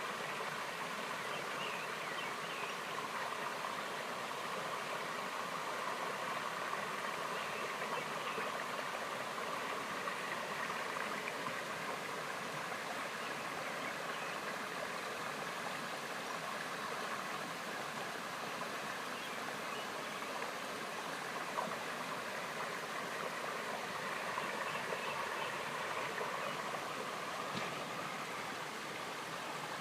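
Mountain valley stream running steadily over rocks, an even rushing of water.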